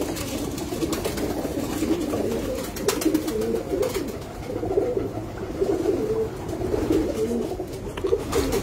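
Domestic pigeons cooing in a loft, many calls overlapping into a steady warbling chorus, with a few short sharp clicks.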